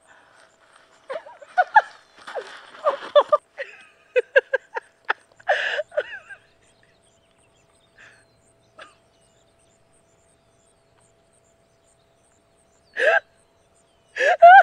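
A woman gasping and sobbing in short, broken breaths for several seconds, then falling silent, then letting out two short cries near the end.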